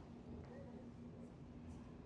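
Faint city street ambience: a low rumble with a steady hum and faint distant voices.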